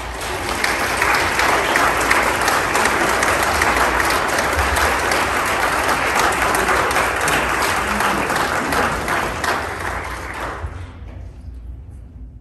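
A congregation applauding: dense clapping that swells over the first second or two, holds, and dies away about eleven seconds in.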